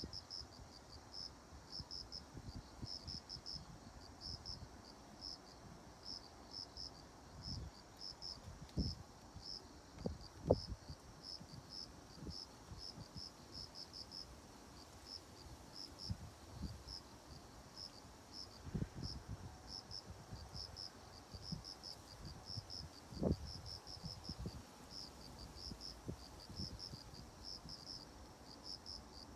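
Crickets chirping: short, high chirps repeating steadily, a few each second. A handful of low thumps or rumbles come and go beneath them.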